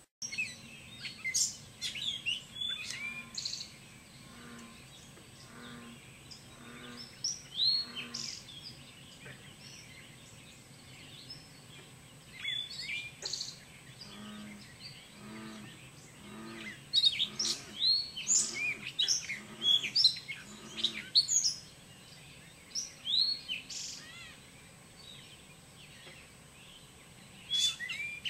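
Birds calling outdoors: many short, high chirps and quick sweeping whistles from several birds, busiest in the second half. Beneath them, a low call repeats about twice a second for several seconds in the middle.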